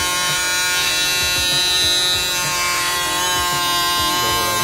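Small brushed DC motor running steadily with a high, buzzing whine, uneven low ticking underneath, as it spins the disc and contact strip that pulse a transformer in a homemade inverter.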